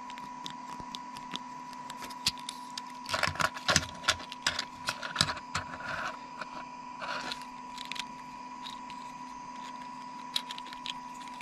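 Clicking and light rattling of a 3D-printed plastic articulated elephant's jointed legs and head being moved in the hand, with a burst of rapid clicks in the middle. A faint steady hum runs underneath.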